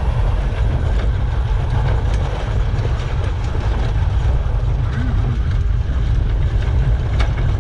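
Electric UTV driving over a rough dirt trail: the chassis and suspension creak and rattle in many small ticks over a heavy, steady low rumble.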